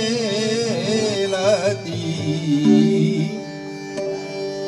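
Devotional bhajan singing: a male voice draws out a long, wavering note on the word "gela" for about a second and a half. Then the accompaniment carries on with steady held notes, typical of a harmonium.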